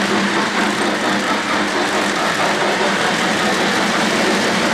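O-gauge three-rail model freight train rolling past close by, its wheels running on the track with a steady rolling noise.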